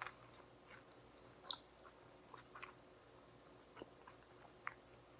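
Faint close-up chewing of a sandwich: soft, scattered mouth clicks and smacks, with a few slightly louder ones.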